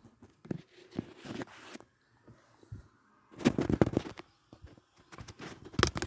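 Irregular handling noises: clicks, knocks and rustling from hands working among plastic parts, with a louder cluster of knocks about halfway through.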